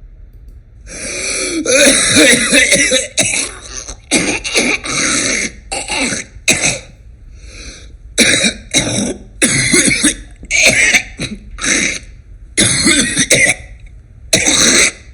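A person coughing in repeated bouts, more than a dozen loud coughs starting about a second in. It is a productive cough, taken for a smoker's cough bringing up thick, hard-to-clear sputum.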